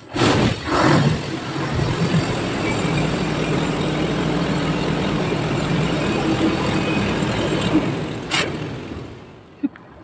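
Truck engine running hard and blowing a rushing blast of water and mist out of its exhaust pipe, flushing the pipe clean. It starts suddenly, holds steady with a low engine hum under the rush, and dies away about nine seconds in, with a sharp click shortly before.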